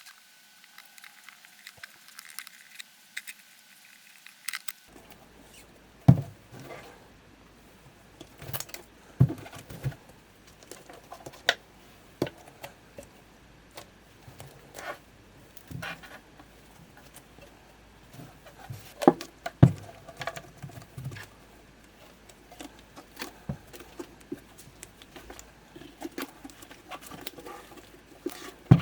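Irregular light taps, clicks and scrapes of hand work, with a few sharper knocks, the loudest about 6 s in and around 19 to 20 s in.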